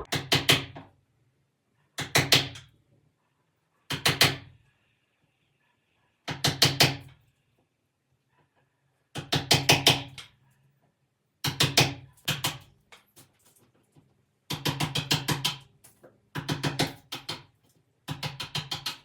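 A wood chisel being struck in quick bursts of several blows, with short pauses between bursts, cutting a mortise in a door frame so the lock's strike plate sits flush.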